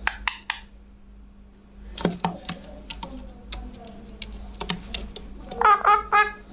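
Rose-ringed parakeet giving three short, loud calls near the end, after a stretch of scattered sharp clicks and taps.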